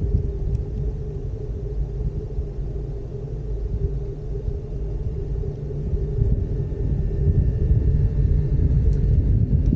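Low steady rumble of a ropeway gondola cabin travelling along its cable, picked up by a microphone held outside the cabin, with a faint steady hum under it. The rumble grows louder in the last few seconds.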